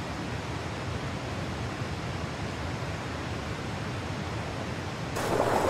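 Rushing whitewater of river rapids and a waterfall, a steady roar that turns abruptly louder and brighter about five seconds in.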